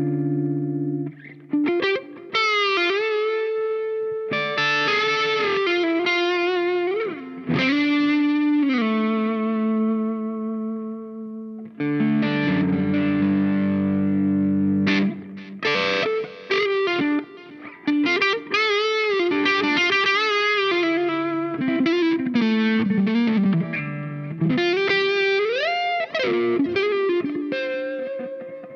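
Larrivee RS2 electric guitar played through a Dazatronyx RAD distortion pedal, a RAT-style circuit with every knob at noon, into a clean Dumble-style amp with a little delay. It gives distorted, sustained lead notes with several string bends and a held chord about halfway through.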